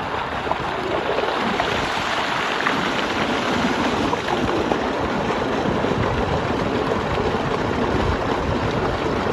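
Water gushing and churning steadily in a small concrete irrigation tank, with splashing as a person bathes in the flow.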